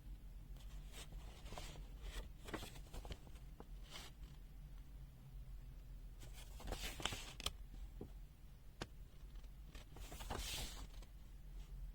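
Faint handling sounds: scattered light clicks and soft rustles, with two brief swishes about seven and ten and a half seconds in, over a low steady hum.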